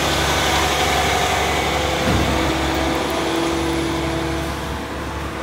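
A car passing on the street, its engine and tyre noise fading near the end.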